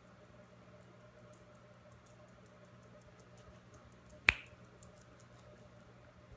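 A small dog's claws ticking on a tile floor as it trots, with one sharp click about four seconds in.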